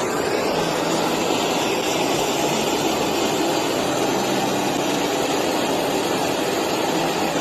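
Torch flame burning steadily as it heats gun steel, bringing the metal up to temperature for cold bluing.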